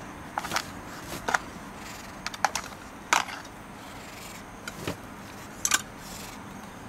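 Cat eating wet food from a plastic tray, making an irregular run of sharp clicks and crackles, the loudest about three seconds in and again near the end.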